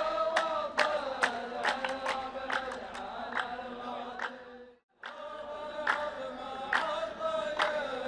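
Male chorus chanting a line of poetry in unison in the Saudi mehawara (qalta) style, with sharp hand claps about twice a second. The sound cuts out for a split second about five seconds in, then the chant resumes.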